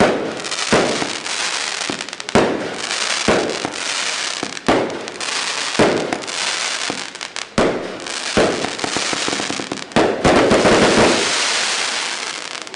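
Geisha Double Demolition firework cake firing: about ten sharp shots bursting at roughly one-second intervals, each followed by dense crackling. A long, loud crackle starts about ten seconds in and fades near the end.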